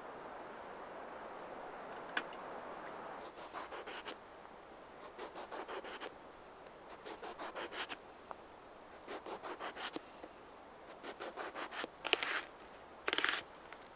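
Water trickling from a kettle over a hand, then a knife slicing an aubergine against a wooden chopping block in several quick runs of crisp cuts. Near the end a homemade billhook cuts through an onion with two louder crunching strokes.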